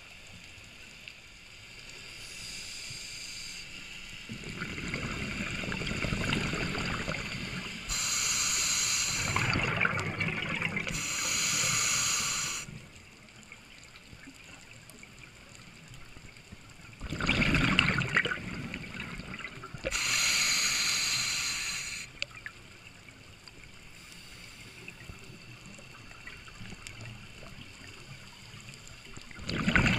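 Scuba diver breathing through a regulator underwater: hissing inhalations and bubbling exhalations come in a few separate surges a few seconds apart, with quieter gaps between.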